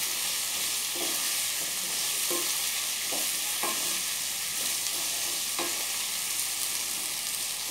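Chopped green chillies and ginger sizzling steadily in hot oil in a kadhai over a low gas flame, stirred with a slotted spatula, with a few soft scrapes of the spatula against the pan.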